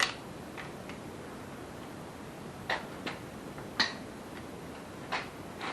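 Sparse, irregular metallic clicks and taps of hand tools working on the engine's pistons and connecting rods, about eight in all, the loudest almost four seconds in.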